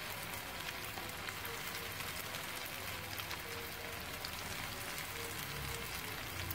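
Breadcrumb-coated banana pieces frying in hot oil in a pan: a steady sizzle with many small crackling pops.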